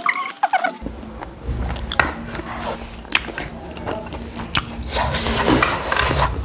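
Close-miked chewing and lip-smacking of a mouthful of noodles, with wet clicks and smacks scattered through.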